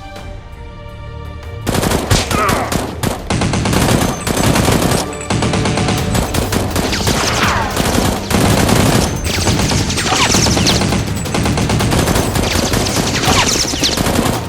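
Rapid bursts of automatic gunfire sound effects starting about two seconds in and going on without a break, over background music.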